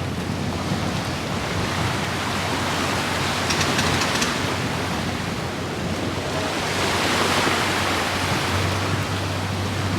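Wind buffeting the microphone over the wash of sea water, swelling twice, with a steady low hum underneath.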